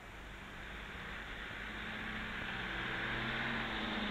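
Ford Major 4000 tractor engine running as the tractor drives closer, growing steadily louder; its engine note comes through about two seconds in.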